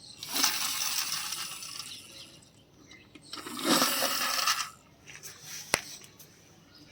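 Two bursts of small hard objects rattling and scraping, the second shorter, followed by a single sharp click.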